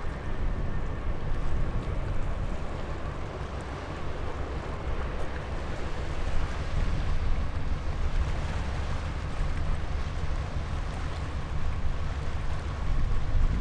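Low steady rumble of the container ship MSC England passing close by, mixed with wind noise on the microphone, with a faint steady hum above it.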